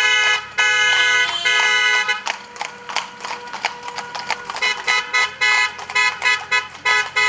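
Car horns held in a long blast for about two seconds, then fainter honking for a couple of seconds more. Music with a quick beat fades in near the end.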